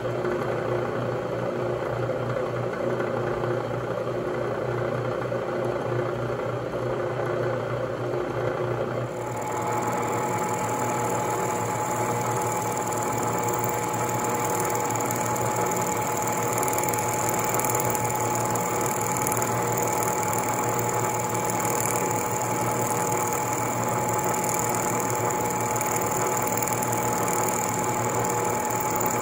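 Vertical milling machine running as an end mill cuts a 5 mm keyseat into a shaft: a steady mechanical whine with several held tones. About nine seconds in, the tones jump to a higher pitch.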